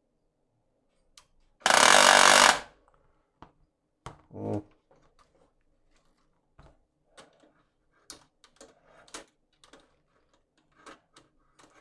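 HP LaserJet P1102W laser printer starting up with its covers off: about two seconds in comes a loud, harsh cracking noise lasting about a second, then a smaller knock and a run of light clicks from the mechanism. This cracking is the printer's fault, which the technician traces to the gearbox that drives the cartridge.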